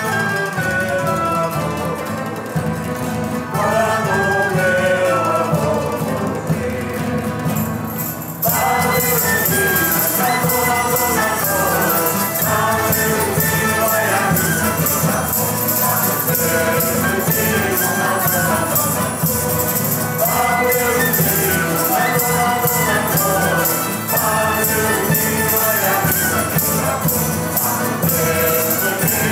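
Portuguese folk ensemble playing a traditional Epiphany song: singing voices with guitars, mandolin and accordion. About eight seconds in, rhythmic jingling percussion joins with a steady beat and the music gets louder.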